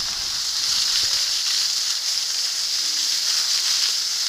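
Steady hiss of skis sliding over packed snow, even throughout.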